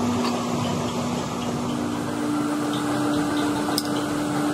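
Steady machine hum with a droning low tone that steps a little higher about two seconds in, and a light click near the end.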